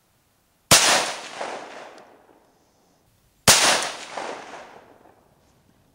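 Two .204 Ruger rifle shots about three seconds apart, each a sharp crack followed by an echo that dies away over a second or so.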